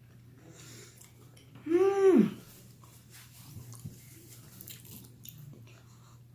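A person chewing a bite of jalapeno popper with soft, wet mouth clicks, and one loud appreciative "mmm" about two seconds in whose pitch rises and falls.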